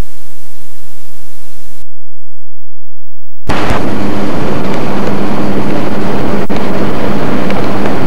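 Loud, steady hiss of old videotape playback with a low hum. It drops to near silence for about a second and a half around two seconds in, then returns louder, with a single click a few seconds later.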